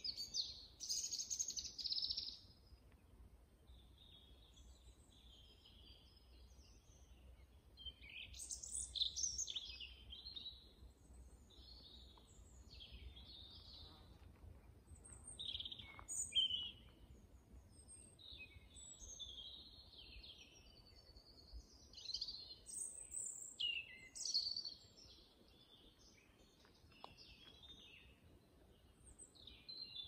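Songbirds singing: short, high phrases and chirps coming every few seconds, some louder and nearer than others, over a faint low background rumble.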